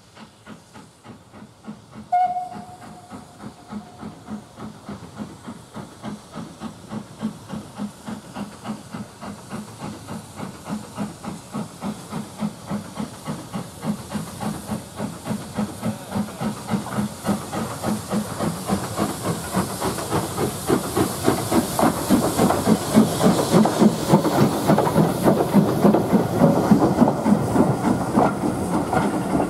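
Steam locomotive: a short whistle about two seconds in, then steady chuffing exhaust beats that grow louder as the engine draws near.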